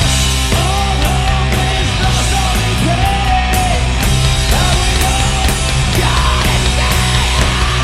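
A heavy metal band playing live and loud: distorted guitars and bass over drums with regular cymbal hits. A held, bending melodic line rides on top of the riff.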